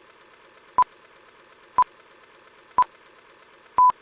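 Short electronic beeps of one steady pitch, one a second, the last one held a little longer, like broadcast time-signal pips, over a faint hiss.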